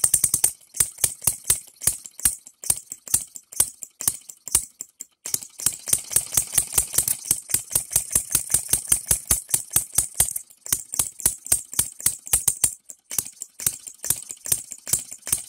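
Small Engine DIY three-stroke model gasoline engine with buzz-coil ignition, running on its own. It makes a rapid, uneven train of sharp ticks, several a second, that falters briefly a couple of times.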